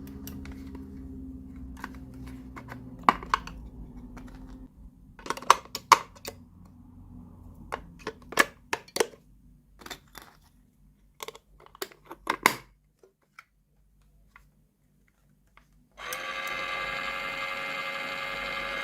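Small plastic toy kitchen pieces clicking and tapping as they are handled: a couple of dozen sharp, separate taps over about eight seconds, then a short quiet. Near the end a steady hum with many overtones starts abruptly.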